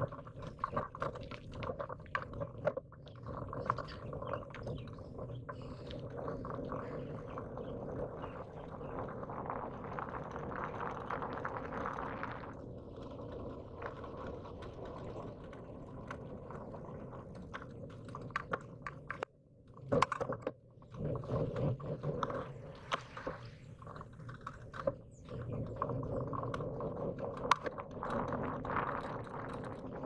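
Riding noise picked up by a handlebar-mounted camera: a steady rumble of tyres on pavement and wind, with constant small rattles and clicks from the mount and bike. It drops out briefly about twenty seconds in.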